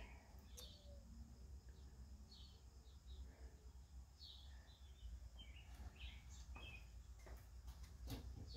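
Near silence: faint room tone with a steady low hum and scattered faint bird chirps, and a few light clicks near the end.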